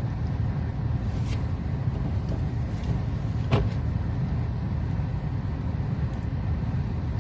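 Low, steady rumble of a car's engine and running gear heard from inside the cabin, with one short click about three and a half seconds in.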